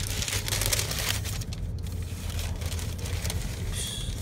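Tissue paper rustling and crinkling as hands fold it back from a pair of sneakers in a shoebox, over the steady low rumble of a car's cabin on the move.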